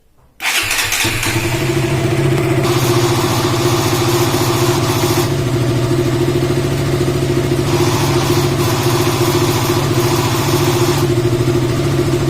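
KTM Duke 200's single-cylinder engine starting about half a second in and then running steadily with the abnormal noise that brought it to the workshop. The noise goes away when the headlight is switched off, so the mechanic suspects the magneto (stator) coil rather than the main bearing another shop blamed.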